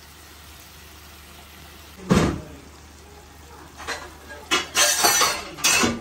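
A single heavy thump about two seconds in. Then a wooden spatula scrapes and tosses pieces of fried chicken through thick masala in a granite-coated wok, in a run of quick strokes near the end.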